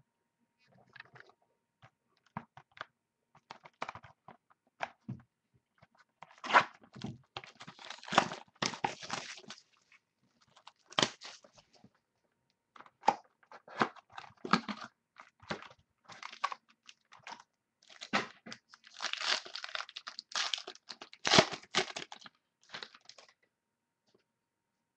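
A sealed box of trading cards being unwrapped and opened by hand: plastic wrapping crackling, crinkling and tearing, with small clicks of cardboard, in irregular spells that are densest a quarter and three quarters of the way through.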